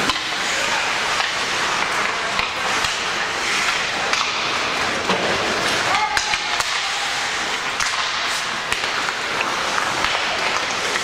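Spectators' voices in a large echoing hall, a steady din of chatter and calls, with occasional faint knocks and thuds.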